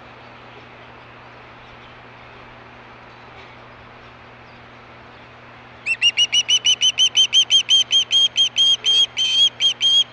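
Juvenile osprey calling: a fast run of high, whistled chirps, about four to five a second, starting about six seconds in, over a faint steady background hum.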